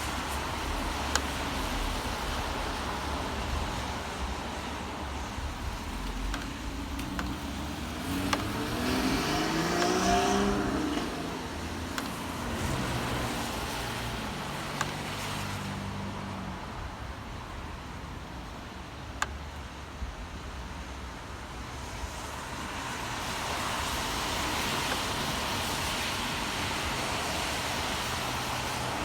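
Rainy-day city street traffic: steady road noise, with a vehicle's engine rising in pitch as it accelerates past about nine to eleven seconds in, then a lower engine hum, and another car hissing past on the wet road near the end. A few sharp ticks stand out.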